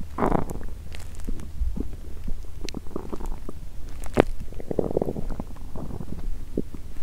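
Empty stomach gurgling and rumbling from hunger after a 22-hour fast: a gurgle right at the start, scattered small pops and clicks, one sharp pop a little after four seconds, and another gurgling rumble about five seconds in, over a low steady hum.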